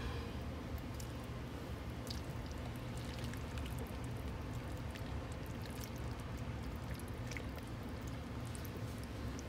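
Spatula stirring fettuccine noodles through a thick, creamy cheese sauce in a pot: soft wet squelches with many small sticky clicks, over a steady low hum.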